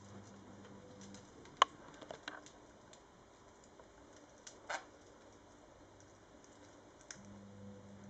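Budgerigars pecking and chewing at a hanging straw-and-rope toy: scattered sharp clicks and taps, the loudest about a second and a half in and another about halfway, with softer ones in between.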